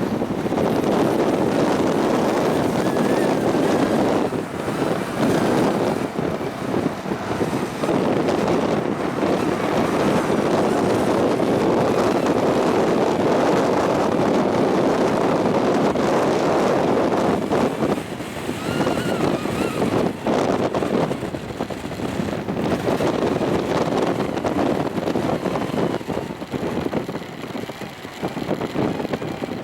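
Strong gusting wind rushing and buffeting the microphone, easing off briefly a few times. About nineteen seconds in, a faint wavering whistle rises over it.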